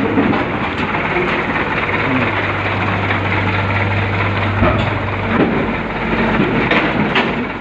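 Heavy engine running steadily. A low hum comes in about two seconds in and drops out about five and a half seconds in.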